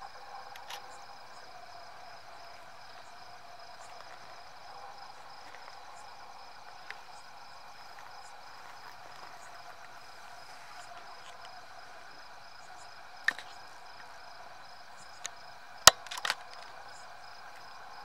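Night-time insect chorus, with a cricket pulsing evenly above a steady hum. A few sharp clicks break in over the last few seconds.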